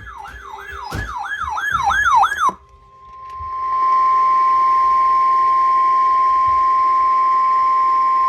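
A siren-like wail of about seven quick falling sweeps grows louder and cuts off about two and a half seconds in. A second later a single steady alarm tone fades in and holds: the weather radio warning alarm tone that opens a severe thunderstorm warning broadcast.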